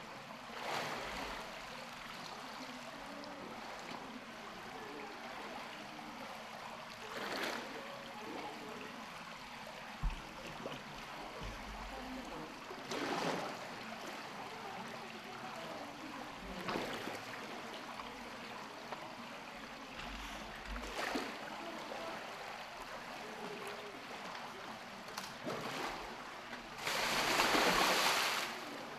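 Polar bear swimming in a pool: water sloshing and lapping steadily, with several short splashes as it paddles, and one big, loud splash lasting a second or two near the end as it surges up out of the water.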